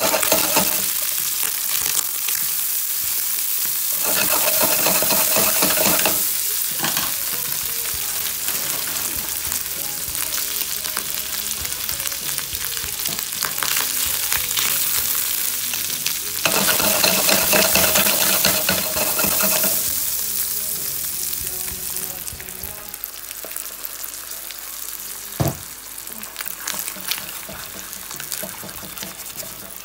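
Bacon, onion and spinach sizzling in a frying pan as they are stirred, later with beaten egg. The sizzle swells twice for a few seconds and dies down over the last several seconds, and there is a single sharp knock of a utensil on the pan near the end.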